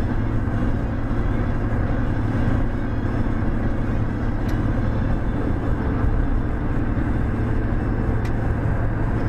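Steady road and engine noise of a car cruising on a highway, heard inside the cabin, with a constant low hum and two faint ticks, about halfway through and near the end.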